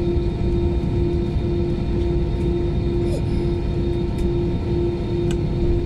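Steady airliner cabin noise on the ground just after landing: a low engine and rolling rumble with a steady droning hum running through it.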